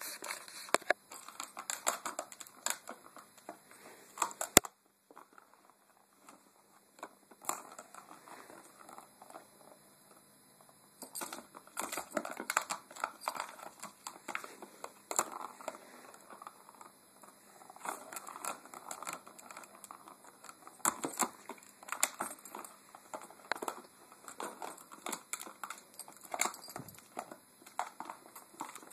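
A Cardigan Welsh Corgi puppy pawing and nosing a plastic cat ball-track toy: irregular clicking and rattling of plastic and the ball in the track. A sharp click about four and a half seconds in is followed by a pause of about two seconds, then the clatter resumes.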